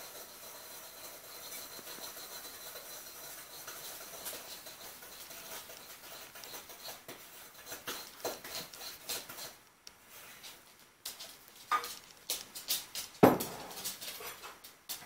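A dog's claws clicking and scrabbling on a tiled floor as it paws at and drags a sheepskin mat, with irregular light taps and scrapes. A few sharper knocks come near the end.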